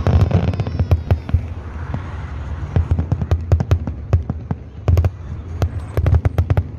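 Aerial fireworks going off: low booms of bursting shells under a dense run of sharp crackles and pops, thickest from about five seconds in.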